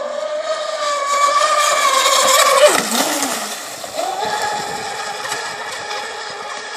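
Twin 40 mm brushless electric motors of a large RC racing catamaran whining at full speed over the hiss of spray. The whine climbs and gets louder as the boat closes in, drops sharply in pitch as it passes close by about three seconds in, then settles to a steadier, quieter whine as it runs away.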